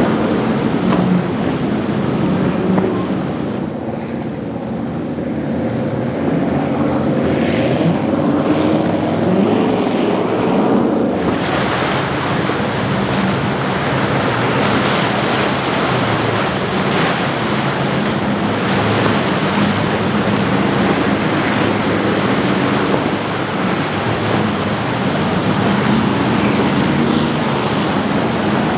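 Large outboard-powered boats running hard through rough inlet chop: a deep engine drone that rises and falls in pitch over the rush of waves and spray. In the second half the boat is a Midnight Express 37 Cabin on triple Mercury 300 outboards, and the churning water grows louder.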